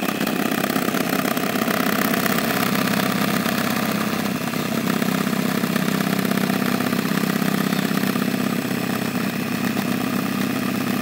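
Electric hand mixer running steadily, its beaters whipping eggs into a froth in a plastic bowl.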